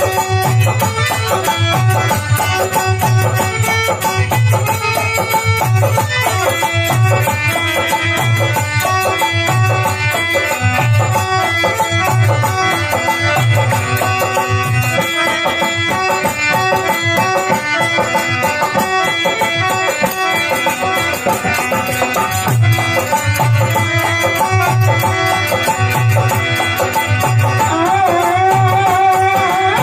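Instrumental interlude of an Indian folk devotional song (bhajan): a melody instrument plays over a steady hand-drum beat, with a wavering held note near the end.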